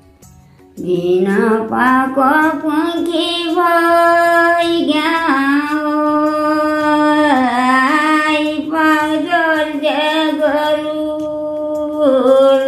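An elderly woman sings a Nepali folk song in the thadi bhaka style, with no instruments. She starts about a second in with a rising note, then holds long, wavering notes that bend between pitches.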